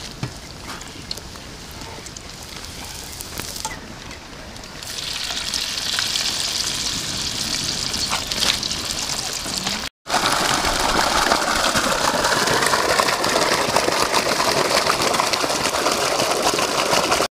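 A few light clicks of a wire strainer, then batter-coated cauliflower pakoda sizzling in hot oil in an iron kadai. About ten seconds in it cuts off suddenly and is replaced by louder water gushing from a PVC pipe outlet.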